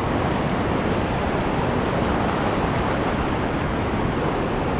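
Ocean surf breaking and washing along the shore as a steady rush of noise.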